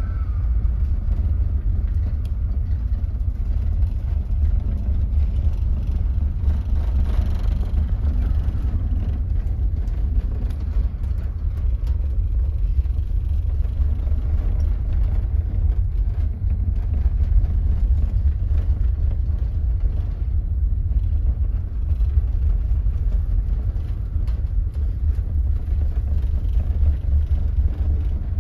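Storm-force wind buffeting the microphone in a heavy, steady rumble, over the rush of a rough sea and a ship's churning wake.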